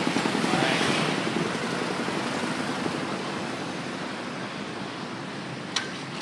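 City road traffic, cars and motor scooters passing close by, the noise slowly dying down. A single sharp click near the end.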